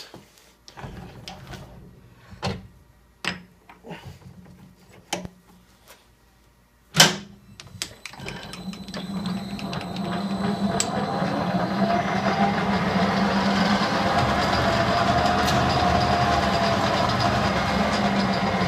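Metal lathe: a few light clicks and knocks from handling the work and tooling, then a sharp click about seven seconds in, after which the lathe's motor and chuck spin up and run steadily with a hum.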